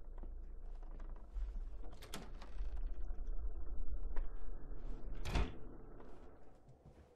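Two sharp bangs about three seconds apart, the second louder, over a low rumbling drone.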